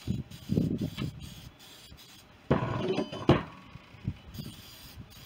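Knocks and clunks of a welded steel hitch being handled and shifted, a cluster in the first second and the loudest, with a short metallic ring, about two and a half to three and a half seconds in.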